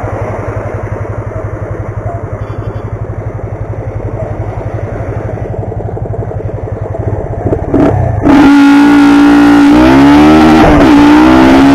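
Yamaha FZ25's single-cylinder engine running steadily at low revs, then going to full throttle about eight seconds in. It gets much louder and climbs in pitch, with two quick drops in revs for upshifts during a hard acceleration run.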